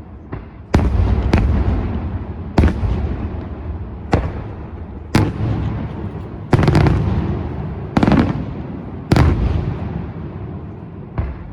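Daylight fireworks show: about ten loud firework bursts at uneven intervals of roughly one to one and a half seconds, including one quick double bang midway, each followed by a rolling echo that dies away.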